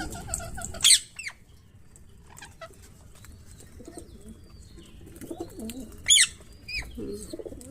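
A parrot gives two loud, sharp screeches, one about a second in and one near the end, while pigeons coo low in between.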